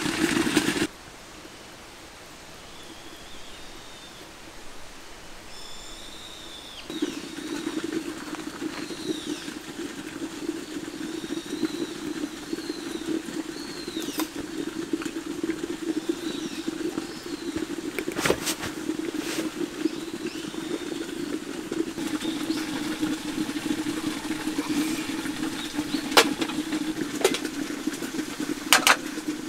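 Camp stove burner running with a steady hum. It cuts off about a second in and comes back about seven seconds in. Birds chirp during the quiet gap, and a few sharp metal clinks of utensils come in the second half, loudest near the end.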